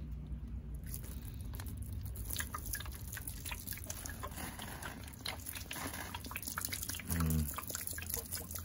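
Water pouring and spattering from a squeezed plastic bottle onto the soil and trunk of a potted bonsai, with many small splashes and drips starting about a second in. A brief low hum sounds about seven seconds in.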